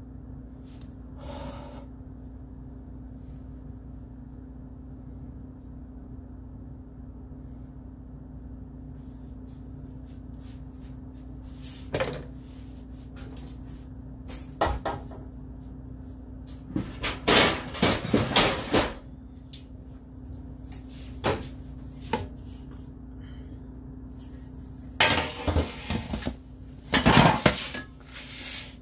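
Kitchen clatter of dishes and utensils: scattered knocks and clinks that start nearly halfway in and come in busier bunches toward the end, over a steady low hum.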